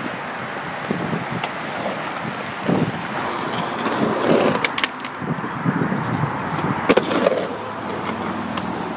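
Skateboard wheels rolling on asphalt: a steady rough rolling noise, with a few sharp clicks and knocks from the board along the way.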